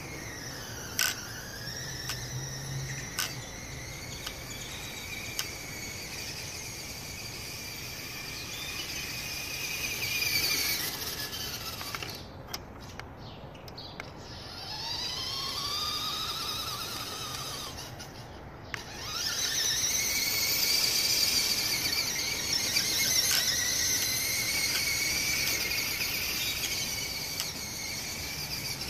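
Radio-controlled truck's electric motor whining, its pitch rising and falling as the throttle is worked, cutting out briefly twice about halfway through.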